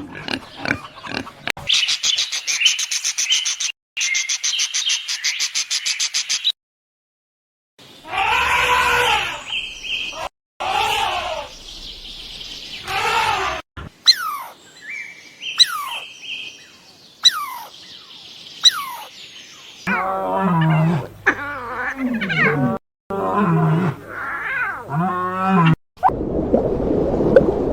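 A run of different farm-animal calls with abrupt cuts between them: a few seconds of rapid pulsing, then pitched calls that bend up and down, short calls falling in pitch, and a series of lower repeated calls.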